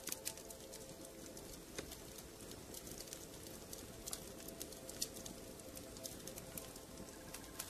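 Soft background ambience: a steady hiss with scattered light clicks, a few louder than the rest, and faint held tones underneath.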